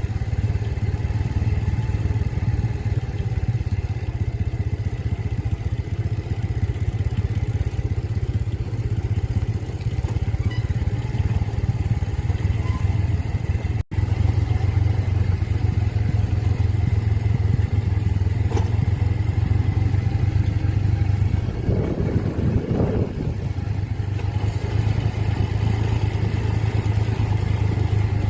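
A motor vehicle's engine running steadily with a low drone, cut off for an instant about halfway through, and swelling briefly a little after two-thirds of the way in.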